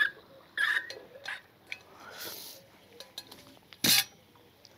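Fishing tackle being handled at a seat box: scattered small clicks and clinks, a brief rustle about halfway through, and one sharp knock near the end, the loudest sound.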